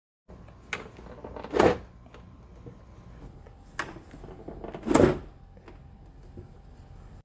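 2017 Nissan Rogue tail light assembly being pulled off its retaining clips: a light click, then a louder plastic pop as it comes free. Heard twice.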